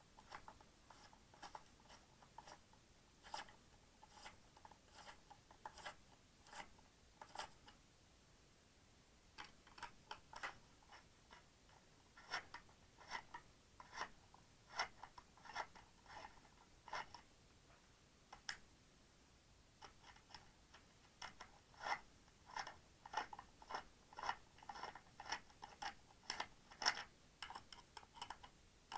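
Faint, irregular clicking as a screwdriver undoes the screws on the other side of a plastic e-bike battery case, several small ticks a second with a couple of short pauses between screws.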